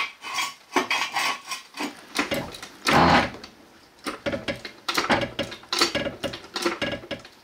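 Metal hand tools knocking, clanking and scraping on car parts: an uneven run of sharp knocks and rattles, loudest about three seconds in.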